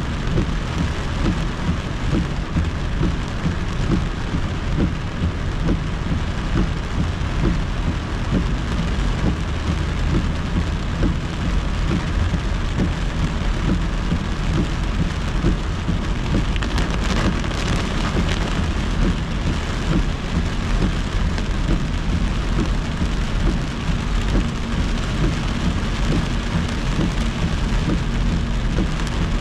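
Heavy rain pelting a moving car's roof and windshield, heard from inside the cabin over steady road and tyre noise, with a brief louder swell of hiss a little past halfway.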